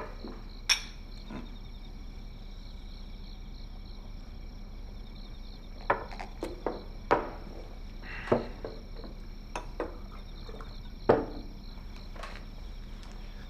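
Crickets chirping steadily in the background, with a scattering of short sharp clicks and knocks; the loudest knock comes about eleven seconds in.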